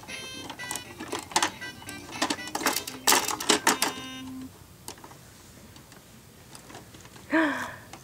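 Electronic baby activity toy keyboard playing short tinny beeping tones and snatches of melody while its plastic keys and buttons are slapped with quick taps. The toy falls quiet about halfway through.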